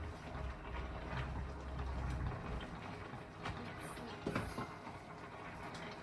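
Cooking sounds at a gas stove: a low steady rumble for the first couple of seconds, then a few sharp clicks and knocks, like cookware or utensils being handled, about three and a half and four and a half seconds in.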